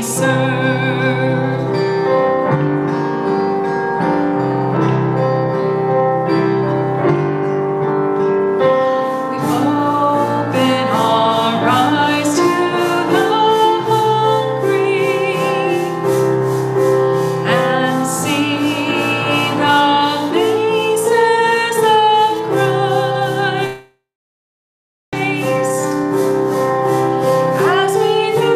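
A song: a woman singing with instrumental accompaniment. The sound cuts out completely for about a second near the end.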